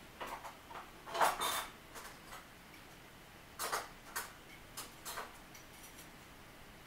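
Irregular metallic clicks and clacks from a passing double-stack container train's wheels, often in close pairs, over a steady low hiss.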